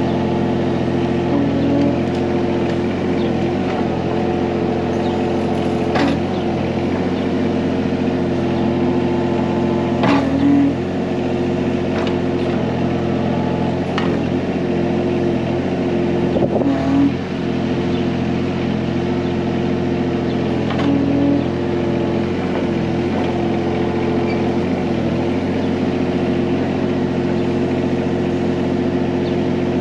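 John Deere 17G mini excavator's diesel engine running steadily during digging, its note changing briefly a few times, with several sharp clicks and knocks over it.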